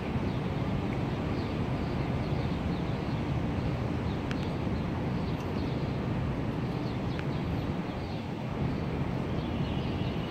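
Steady low rumble of downtown street traffic heard from above, with faint high chirps over it.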